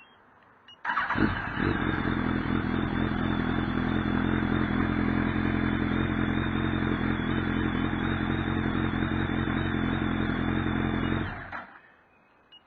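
2005 Kawasaki ZX-10R's inline-four engine fired by the Spy 5000M alarm's remote start. It catches about a second in, idles steadily for about ten seconds, then shuts off and dies away.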